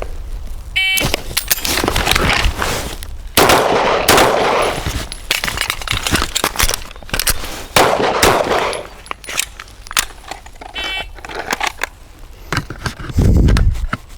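A shot timer beeps about a second in, then a string of shots from suppressed 5.56 AR-15 rifles follows, sharp cracks coming in quick groups.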